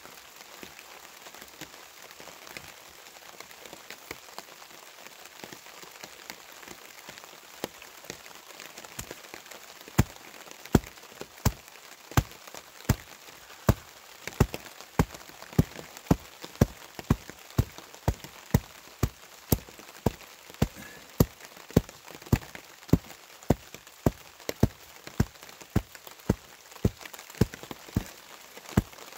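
A faint hiss with a few scattered clicks, then from about ten seconds in a steady run of sharp taps, about one and a half a second.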